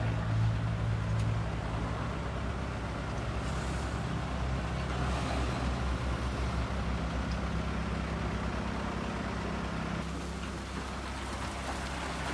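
Heavy diesel engine running steadily, its low hum shifting slightly in pitch a couple of times.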